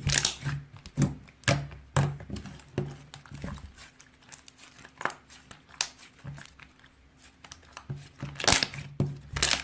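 Slime being squeezed and worked by hand, making irregular crackling, popping clicks, thinning out in the middle and picking up again near the end.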